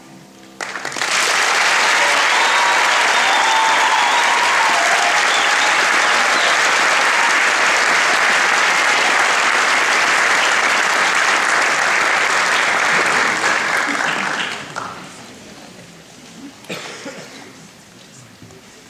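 Concert audience applauding, loud and steady for about fourteen seconds with a few cheers near the start, then dying away.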